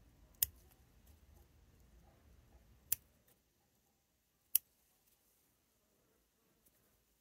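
Bonsai scissors snipping needles and small twigs from a conifer shoot: three separate, sharp snips a second or two apart.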